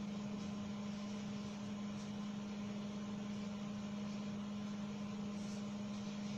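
Steady background hum with a constant low tone and a light hiss: room tone.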